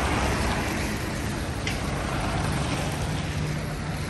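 A car passing close by on a wet road, its tyres hissing on the wet surface, loudest at the start and fading as it moves away, over a steady low hum of street traffic.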